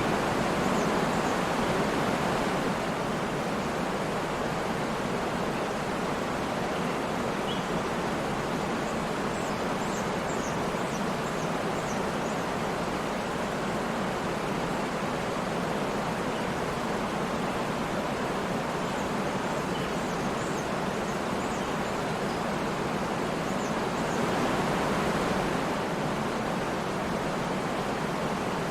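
Waterfall rushing steadily, an even roar of falling water. Faint, short, high bird chirps come through a few times.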